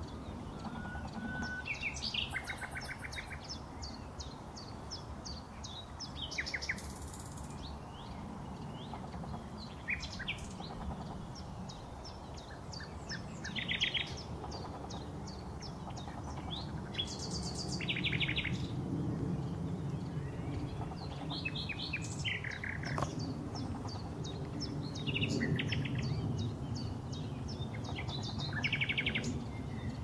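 Common nightingale singing: varied phrases of rapid repeated notes and trills, with a short pure whistle about a second in, each phrase set off by brief pauses. A low steady rumble lies underneath.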